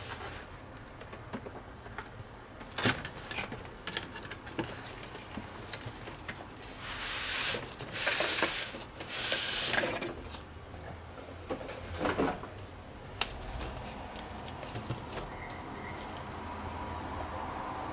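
Cardboard box sleeve and polystyrene foam packing being handled and slid apart: rustling scrapes in the middle, with scattered light taps and knocks.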